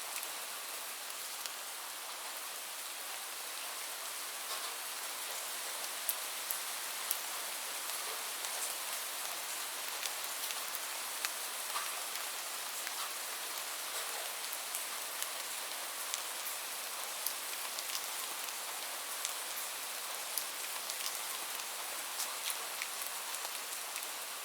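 Heavy rain falling steadily on a surface, a constant hiss with individual drops ticking sharply throughout.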